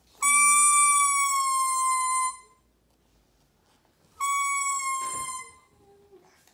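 Baby's plastic toy trumpet blown in two long notes: the first starts just after the beginning and lasts about two seconds, the second comes about four seconds in and is shorter. Each is one steady high tone that sags slightly in pitch toward its end.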